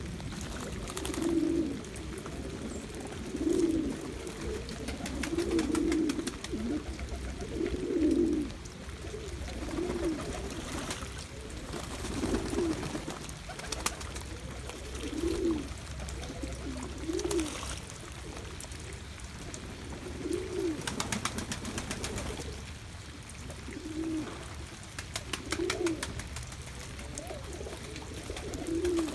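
Domestic pigeons cooing over and over, a low call every second or two, with scattered splashes and wing flutters from birds bathing in a shallow pan of water.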